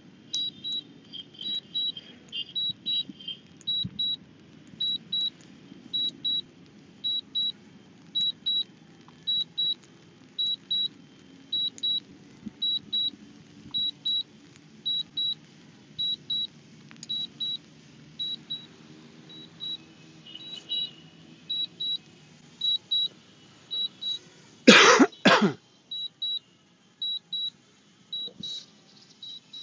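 Drone flight app's landing alert: short high double beeps repeating steadily while the drone lands automatically. Two louder clicks or knocks come close together about 25 seconds in.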